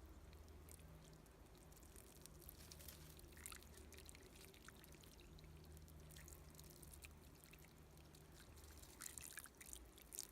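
Near silence: a faint steady low hum, with a few light clicks about a third of the way in and again near the end.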